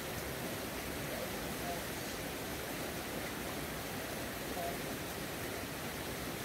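River water rushing steadily over rocks, a constant even hiss and rumble.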